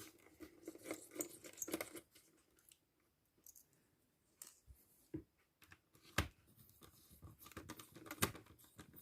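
Faint scratching and clicking of a small screwdriver backing out the small black screws that hold a Lenovo ThinkPad T420's screen, with a quiet pause in the middle and a sharper click about six seconds in.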